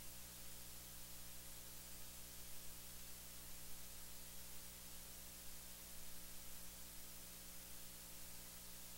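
Faint, steady hiss with a low electrical hum: the recording's noise floor, with no other sound.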